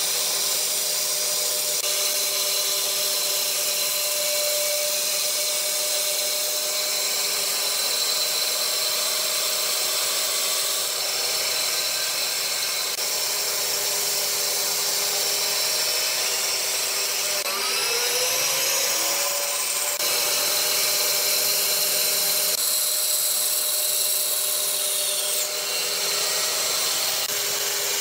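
Electric bandsaw running and cutting through a thick wooden block along a curve: a steady machine whine with the hiss of the blade in the wood. The pitch of the whine glides briefly a little over halfway through.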